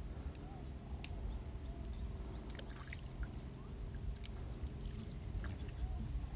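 Shoreline background noise: a steady low rumble, with scattered faint high chirps and ticks over it.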